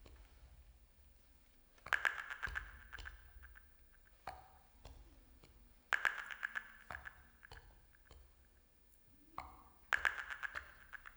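Experimental improvised music: three bursts of rapid clattering clicks, evenly spaced about four seconds apart, each with a short ringing ping that fades away. Sparser soft clicks fill the gaps.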